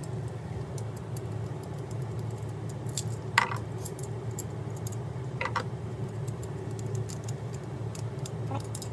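Light metallic clicks and clinks of small screws, a screwdriver and the metal heel piece of a Look Pivot ski binding being handled and screwed together, with two louder ringing clinks about three and a half and five and a half seconds in.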